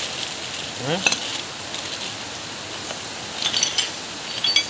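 Small metal steering-rack parts clinking with brief high rings as they are handled, a few times about a second in and again in the second half, over a steady background hiss.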